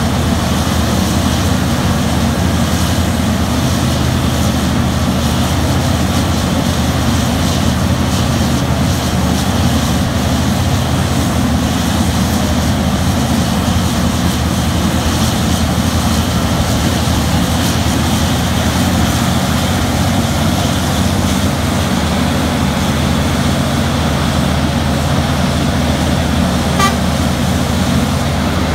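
Terex RH170 mining shovel's engine and hydraulics running steadily under load as it digs and swings. A short high beep sounds near the end.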